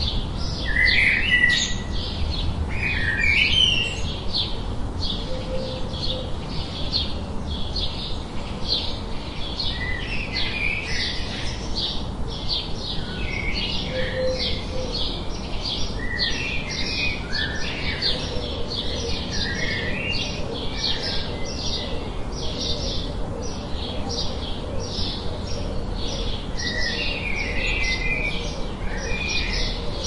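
Birds singing and chirping: a run of short high notes repeating two or three times a second, with scattered lower chirps among them, over a low background rumble.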